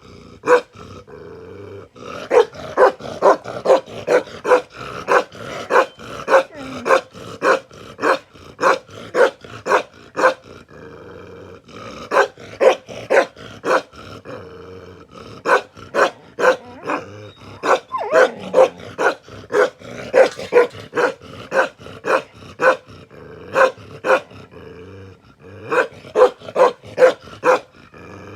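Bakarwal dog barking over and over, about two to three barks a second, in long runs with a few short pauses.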